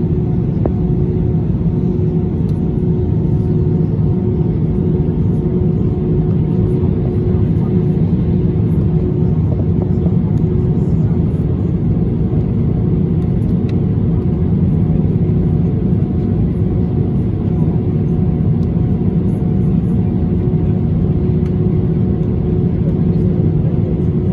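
Airbus A321-200 cabin noise while taxiing: the engines at low thrust make a steady rumble, with a constant hum over it, heard inside the cabin over the wing.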